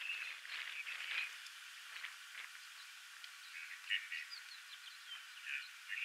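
Scattered short chirping calls of small wild animals, fairly faint, with a few quick gliding notes around the middle.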